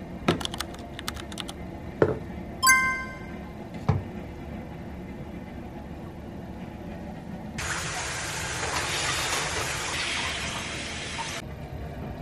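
Toiletry bottles and a tub set down on a bathroom sink counter: a few knocks and clicks, one with a short ringing clink. Then shower water spraying for about four seconds, starting and stopping abruptly.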